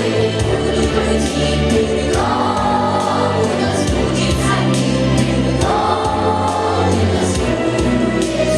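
A song performed by voices in chorus over an instrumental backing, with two long held sung notes.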